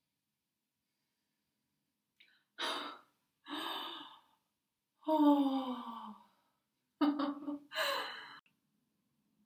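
A woman laughing in breathy bursts, starting about two and a half seconds in: two short gasping laughs, a long laugh that falls in pitch like a sigh, then a choppy, pulsing laugh.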